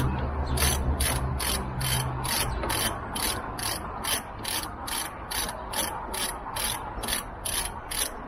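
Half-inch-drive ratchet with a Torx bit clicking steadily, about three to four clicks a second, as its handle is swung back and forth to undo the screws holding a scooter's under-seat storage tub.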